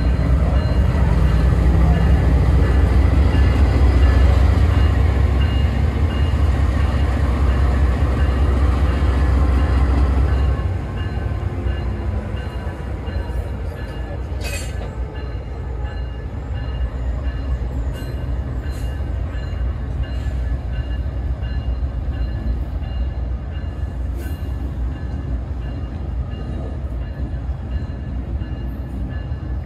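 Amtrak train locomotive running with a deep rumble and a steady high whine. The rumble drops off sharply about ten seconds in, and a few sharp clicks follow later.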